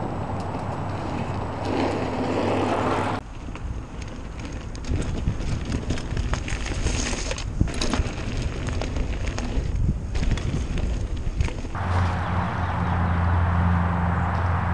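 Hardtail mountain bike ridden over a dirt trail, heard from a handlebar-mounted camera: tyres rolling, with the bike rattling and clicking unevenly over bumps. Before and after this, a steady low hum.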